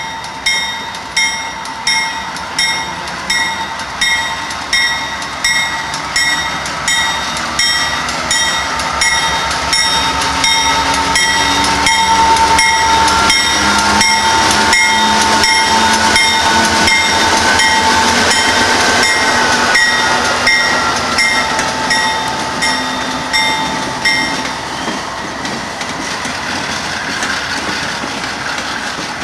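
A Canadian Pacific diesel-led passenger-style train passes close by, its locomotive and wheels getting louder as the engine goes by in the middle and then the cars rolling past with some clickety-clack. Throughout most of it a bell dings steadily, evenly spaced at a little under two strikes a second, and stops a few seconds before the end.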